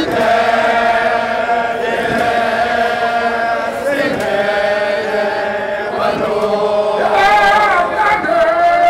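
A Zulu amabutho (regiment) group chanting a song together in unison, with long held notes.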